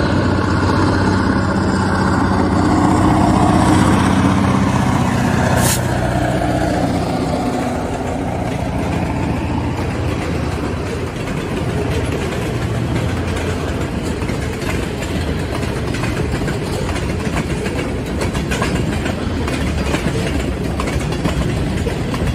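Freight train passing: a diesel engine drone swells and then fades over the first several seconds, giving way to the steady rumble of covered hopper cars and boxcars rolling on the rails, with a single sharp click about six seconds in.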